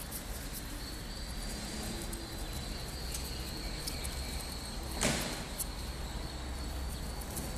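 Background of many young ducklings peeping in their cages: a steady bed of faint, high, short chirps over a low rumble, with one sharp click about five seconds in.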